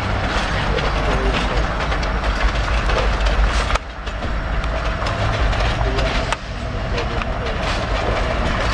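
Norfolk Southern office-car-special passenger cars rolling past on yard track: a steady rumble of the train with wheel and rail noise and small clicks.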